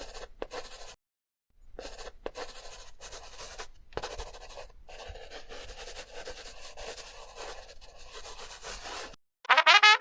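A dry scratching, rubbing noise in uneven strokes. It breaks off fully for about half a second near the one-second mark, then goes on until shortly before the end.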